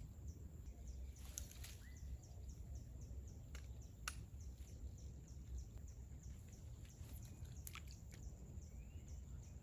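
Faint outdoor ambience: a low steady rumble of wind or surf under a regular series of faint high chirps, a few a second, with a few sharp clicks.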